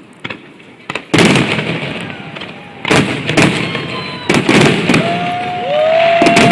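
Fireworks display: a sharp bang about a second in, then a run of bangs and crackle from about three seconds on, with long whistling tones that sweep up and hold steady near the end.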